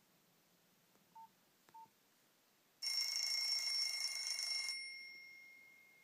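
Nokia Asha 210's built-in 'Clock alert 2' alarm tone playing through the phone's loudspeaker. It is a loud, high ringing chime about two seconds long that stops sharply and leaves a fading ring. It is preceded by two short beeps about a second apart.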